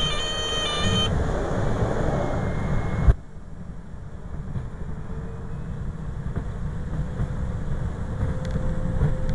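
Cockpit of a Cessna Grand Caravan on landing. The stall warning horn sounds over turboprop and wind noise for about the first second. A sharp thump about three seconds in marks the wheels touching down, after which the noise drops sharply and a steady low rumble of the rollout continues.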